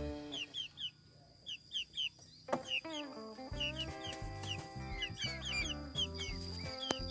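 Young chickens peeping over and over, short falling peeps coming a few times a second, over background music with held notes.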